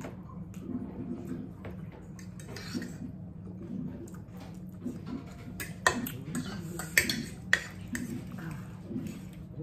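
Forks clinking and scraping against dinner plates while two people eat, with three sharp clinks in the second half.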